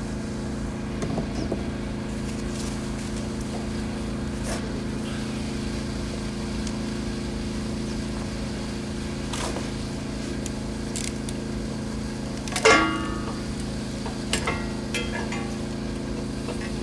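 A steady motor hum runs throughout. Near the end come a few clanks from handling metal parts, the loudest a single ringing clank, followed by two lighter knocks.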